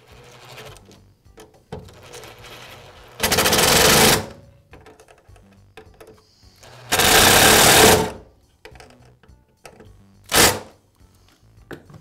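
Makita cordless driver spinning in two bursts of about a second each, then a short burst near the end, as it drives the screws of a power-cord clamp.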